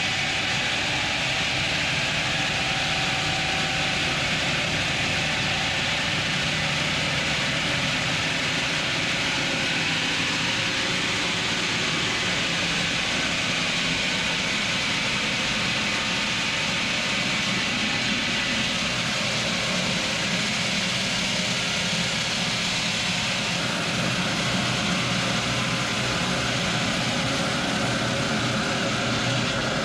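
Heavy machinery running steadily with an even, unbroken drone and hiss, without pauses or strikes.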